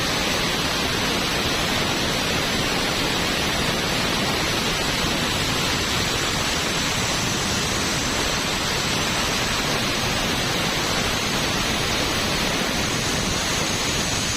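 Compressed air hissing steadily out of an air compressor, an even rushing hiss with no motor beat heard under it.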